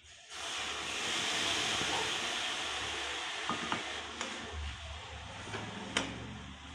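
Loud sizzling as liquid is poured from a small cup into a hot metal wok of taro pieces, starting suddenly and slowly dying down. Later the spatula knocks and scrapes against the wok a few times while the contents are stirred.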